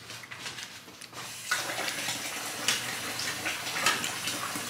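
Kitchen tap turned on about a second and a half in, water running steadily, with a few light clinks over it.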